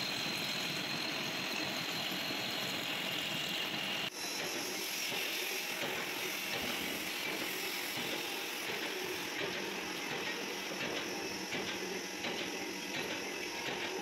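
Metal lathe running with a metal shaft spinning between centres, a steady mechanical hum with hiss. After a brief drop about four seconds in, an abrasive cloth strip rubs on the turning shaft to polish it.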